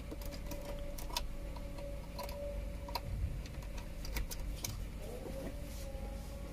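Irregular light clicks and taps, about eight of them, over a steady low hum and a faint steady tone.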